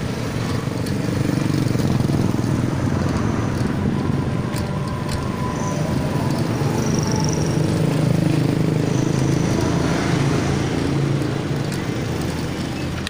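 Steady rumble of riding a bicycle along a street with the phone on the handlebars: wind buffeting the microphone and road noise, with motor traffic such as a passing motorbike mixed in.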